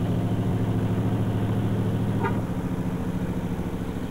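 A motor vehicle's engine running at a steady speed, a low even hum.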